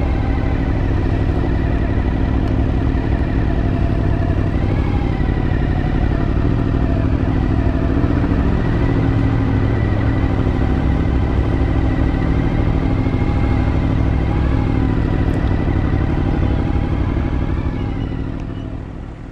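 Motorcycle engine running steadily at low road speed, heard from the rider's seat, with small rises and falls in pitch. It fades away near the end.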